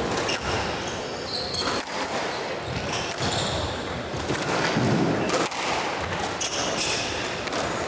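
Squash rally: the ball smacks off rackets and the walls in a string of sharp knocks, while the players' shoes squeak on the wooden court floor.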